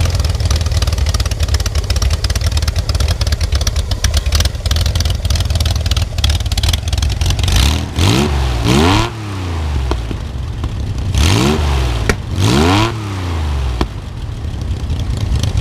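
Air-cooled Corvair flat-six engine running at a low idle, blipped up and back down four times in two pairs, about eight and eleven seconds in. Its valves are due for adjustment, which the owner expects to clear a slight backfire.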